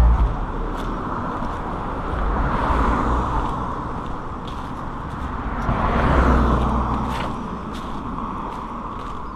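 Road traffic: two vehicles pass one after the other, swelling about three and six seconds in, over a steady background hiss.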